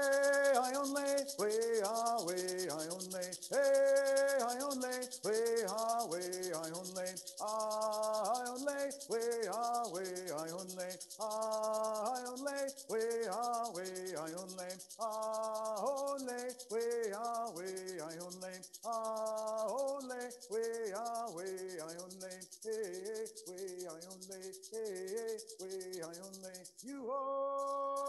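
A man singing a song in held, stepping notes while shaking a hand rattle in a steady fast rattle. The rattling stops about a second before the end, leaving a few single shakes.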